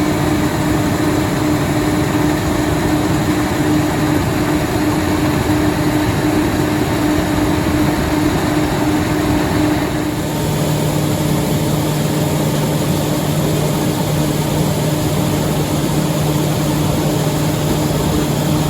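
White 7300 combine running steadily, its Chrysler 318 V8 gasoline engine and harvesting machinery giving a loud, even drone with a steady hum. A deeper hum comes up about halfway through.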